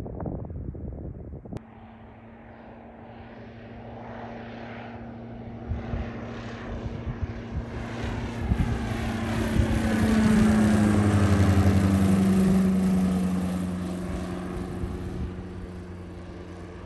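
A low-flying aircraft passes over, its engines running with a steady low hum that builds to loudest about ten to thirteen seconds in, then slowly fades.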